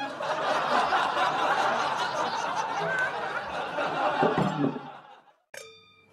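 Canned audience laughter, many people laughing together for about five seconds before it cuts off. Just after, a single bright ding rings out and fades.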